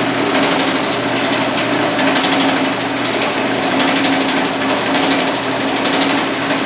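Homemade power hammer running, its dies pounding sheet metal in a rapid, continuous stream of blows, with a steady motor hum under it, as the panel is worked through to shape it.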